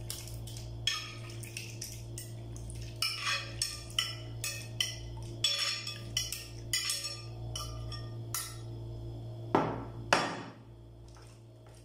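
Metal spoon scraping and clinking against a glass bowl as green gulaman (agar jelly) cubes are pushed out into a plastic basin, with irregular clicks and knocks. Two louder knocks come about ten seconds in.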